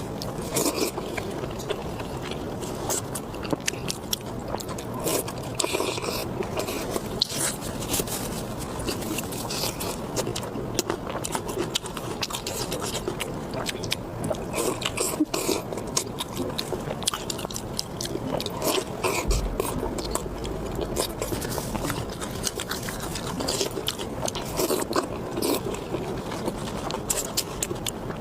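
Close-miked eating sounds: a person chewing and biting food, with many small wet clicks and crackles and some scraping, in a steady stream.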